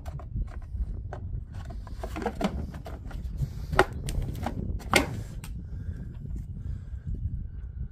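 Hard plastic seat of a child's ride-on quad being lowered and pressed into place, giving a series of clicks and knocks; the two loudest clunks come about four and five seconds in, over a low rumble.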